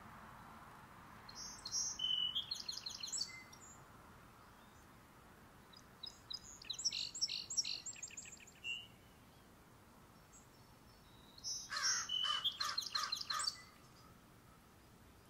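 Small backyard birds chirping in three bursts of rapid, high-pitched trills, each about two seconds long and a few seconds apart.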